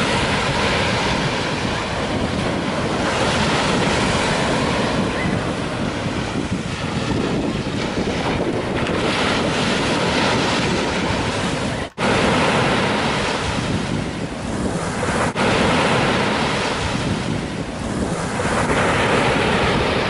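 Small surf breaking and washing up a sandy beach, swelling and easing every few seconds, with breeze buffeting the microphone. The sound cuts out for an instant about twelve seconds in.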